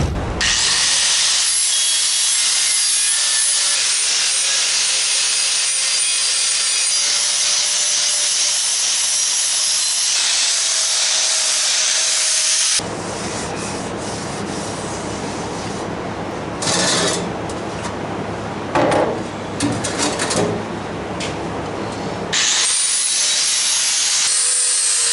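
Power tool grinding and sanding the damaged aluminum lip of a chrome wheel to clean it for welding: a steady abrasive hiss with a faint motor whine. About halfway through it changes to a coarser, fuller rasp with a few brief surges, then returns to the steady hiss near the end.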